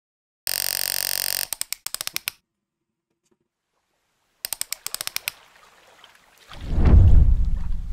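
Stream-transition sound effects. A harsh one-second burst of static buzz cuts off into a quick stutter of clicks. After a silent gap, a second stutter of clicks is followed by a deep rumbling whoosh that swells up and fades near the end.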